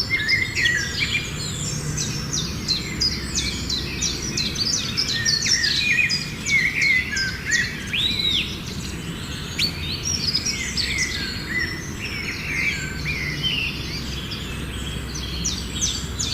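A chorus of small birds chirping and calling over one another, many short high chirps and quick sweeps, over a steady low background rumble.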